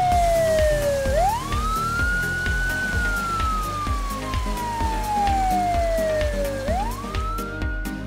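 Police siren wailing: the pitch sweeps up quickly, then sinks slowly over about five seconds, twice, over background music with a steady beat.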